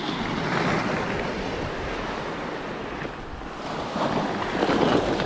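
Small waves washing onto a sand-and-shingle beach, swelling about half a second in and again about four seconds in, with wind buffeting the microphone.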